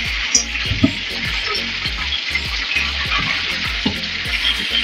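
Marinated chicken pieces deep-frying in hot oil in a steel wok, a steady sizzle on medium heat, with a few brief clicks.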